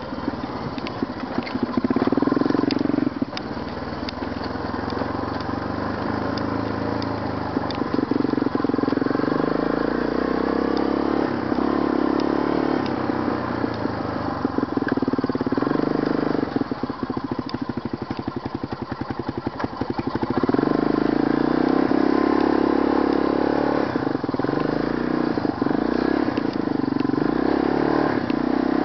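ATV engine running under load on a steep snowy climb, its revs rising and falling with the throttle. Past the middle it slows to a low, lugging chug with each firing pulse audible, then picks up again about twenty seconds in.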